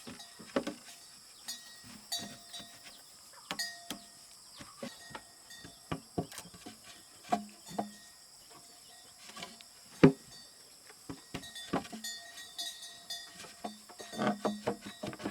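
Irregular sharp knocks and thuds, one much louder about ten seconds in, over a steady high insect drone.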